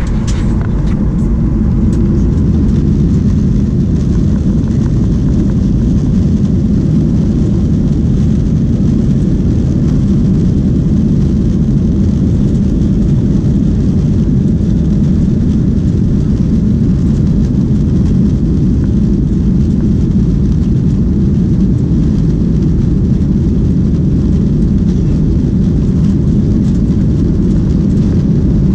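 Cabin noise of a Boeing 737 jet airliner moving on the ground: a steady, loud low rumble of the engines and the rolling aircraft, heard from inside the cabin, with no build-up in power.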